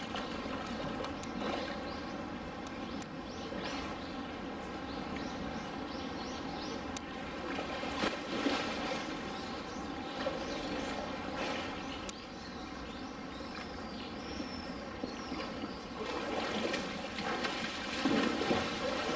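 Water splashing and trickling, with a steady hum underneath; it swells briefly about eight seconds in and again near the end.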